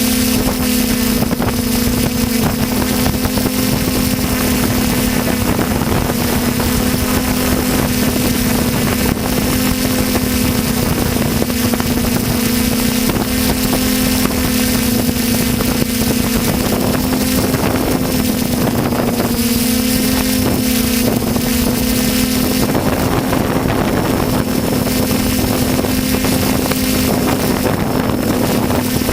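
Skyhero Little 6 hexacopter's six electric motors and propellers humming steadily at one pitch, heard close up from the GoPro on board, with wind rushing over the microphone.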